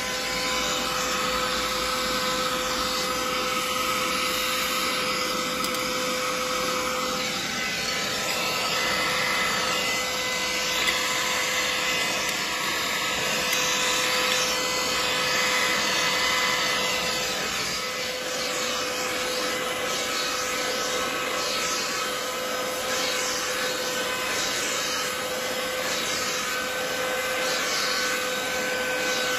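Brigii 3-in-1 cordless handheld mini vacuum running continuously: a steady rush of air under a high motor whine that shifts pitch a couple of times.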